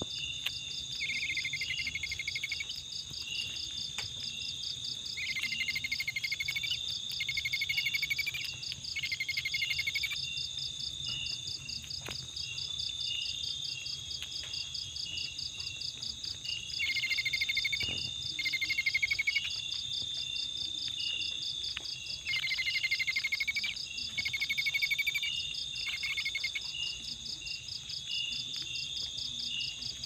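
Insect chorus of crickets: a steady, high, fast-ticking trill, with a louder, lower buzzing call breaking in for about a second at a time every few seconds.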